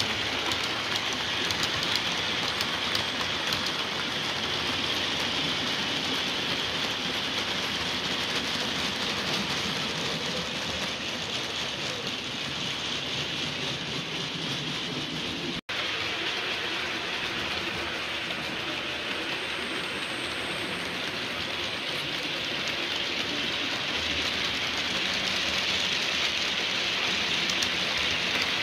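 Model railway train, a Class 42 Warship diesel locomotive model hauling coaches, running on the track. Its wheels make a steady, rattling rolling noise that eases a little mid-way as the train runs to the far side of the layout and grows louder near the end as it comes back close.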